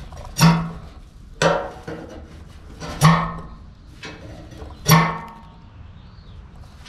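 Four sharp strikes one to two seconds apart, each ringing at the same pitch and dying away over about half a second, like an object being struck.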